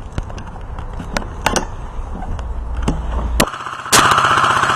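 An airsoft gun firing a rapid full-auto burst: a fast, even rattle lasting just over a second near the end. Before it come a few scattered sharp clicks.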